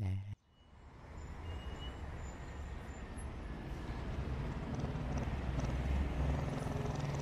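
A Royal Enfield motorcycle's single-cylinder engine running as the bike approaches, growing gradually louder over several seconds and then holding steady.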